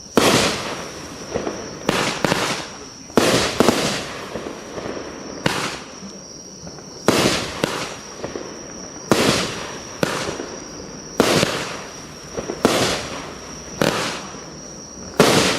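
Consumer fireworks firing shot after shot: about a dozen sharp bangs, roughly one every one to two seconds, some in quick pairs, each with a short fading tail.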